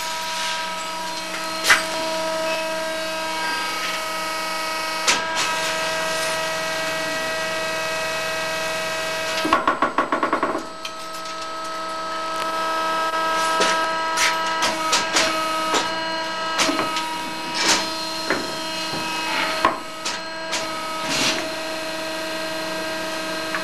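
Hegenscheid 105 underfloor wheelset lathe turning a railway wheel: a steady machine whine of several even tones, with sharp clicks scattered through it and a brief rapid rattle about ten seconds in.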